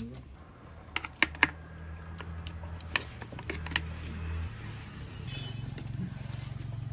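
Wood fire crackling under a clay pot of simmering fish curry: a few sharp pops and clicks, a quick cluster about a second in and more around three seconds, over a low steady rumble.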